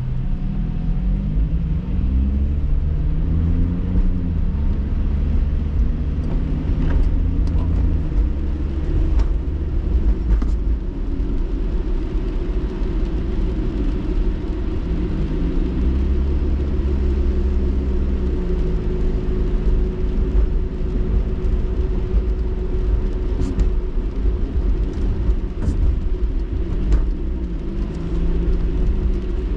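Car engine and road noise heard from inside the cabin, with tyres on a wet road. The engine note rises and levels off three times as the car pulls away and picks up speed, and a few light ticks sound over the rumble.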